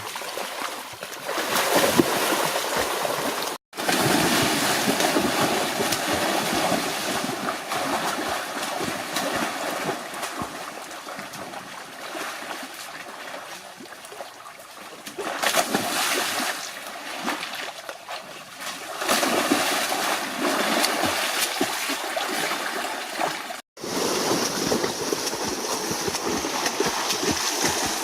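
Water splashing and sloshing, rising and falling in level. It breaks off abruptly twice, about four seconds in and about twenty-four seconds in.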